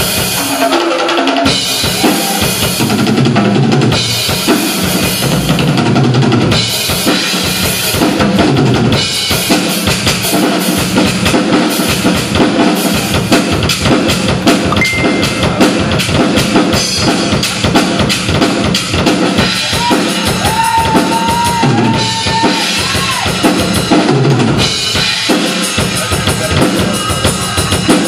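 Pearl drum kit played live in a solo: a continuous stream of quick hits on drums and cymbals.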